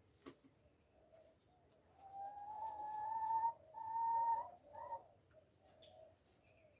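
Backyard hen giving a drawn-out, whining call in three notes: a long one rising slightly, a shorter steady one, then a brief one. Soft low clucking from the flock sits beneath.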